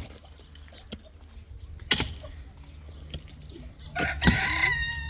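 A rooster crows about four seconds in, a loud call held at a steady pitch. Before it there are a couple of sharp clicks.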